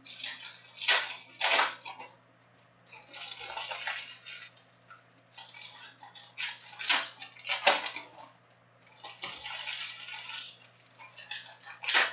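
Foil trading-card pack wrappers crinkling and tearing open by hand, with cards sliding against each other: a run of short, sharp rustles and two longer stretches of steady crinkling.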